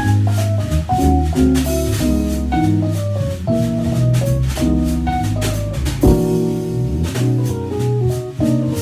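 Jazz trio of keyboard, electric bass and drum kit playing an instrumental tune: held keyboard chords over a walking bass line, with the drums keeping time on cymbals.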